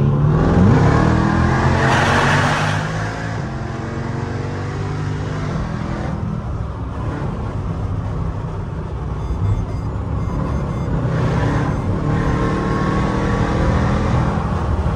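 Car engine revving up, its pitch rising over the first couple of seconds to a loud peak, then running steadily with smaller rises and falls in pitch.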